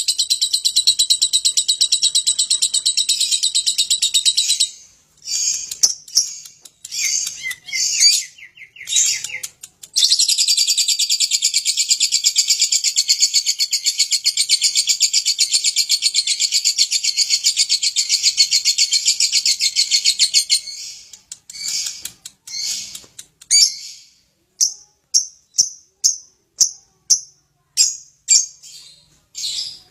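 Lovebird singing its long 'ngekek' trill: a rapid, continuous high-pitched chatter for about four and a half seconds, a few short bursts, then a second unbroken trill lasting about ten seconds. Near the end it gives single sharp chirps, about two a second.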